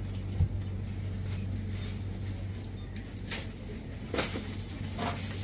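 Supermarket ambience: a steady low hum with a soft thump about half a second in and a few short clicks later on.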